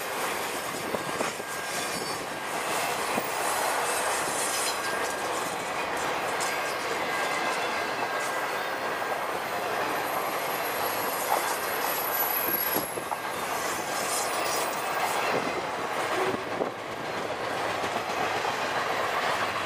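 Union Pacific intermodal freight train rolling past, its cars carrying truck trailers: a steady rumble of steel wheels on rail with scattered clicks. A thin, high wheel squeal comes in about ten seconds in and lasts a couple of seconds.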